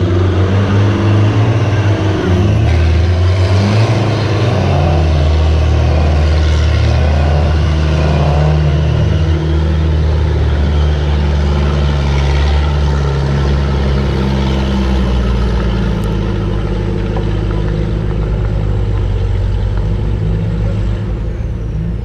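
Off-road vehicle engine revving hard under load, its pitch rising and falling repeatedly, then settling into a steadier drone about halfway through.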